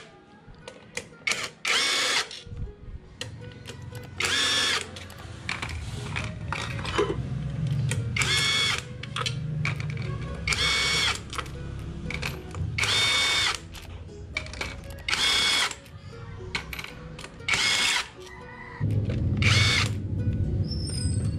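Cordless drill with a socket spinning off the 8mm nuts of a scooter's transmission gear case cover: eight short whining runs of the motor, one per nut, spaced a couple of seconds apart.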